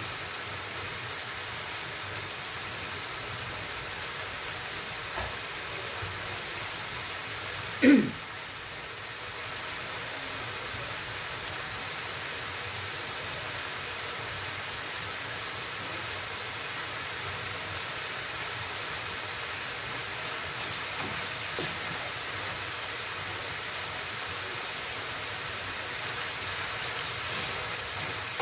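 Steady hiss of bamboo shoots and fish simmering in liquid in a frying pan on a gas stove. A single brief loud sound about eight seconds in, and a wooden spatula starts stirring the pan near the end.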